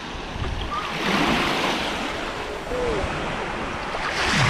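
Small waves washing in over shallow water at a sandy shore, a steady rush of surf that swells about a second in and again near the end.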